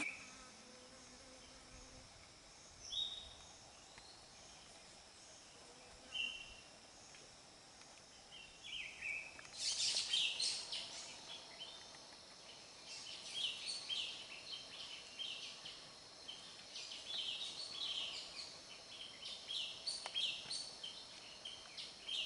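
Forest ambience: a steady faint high insect drone, with a couple of single short high chirps early on. From about ten seconds in come many short chirping animal calls in quick succession, from high in the trees.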